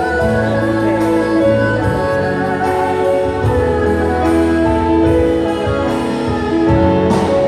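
A live orchestra with bowed strings plays a slow melody of long held notes, heard from the audience in a large hall.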